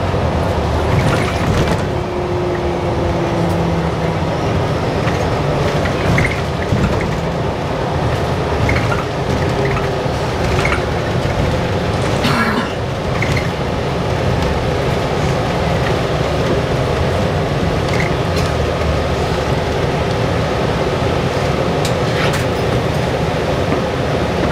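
Cabin noise inside a New Flyer XDE60 articulated diesel-electric hybrid bus: a steady drivetrain and road rumble, with a few brief rattles now and then.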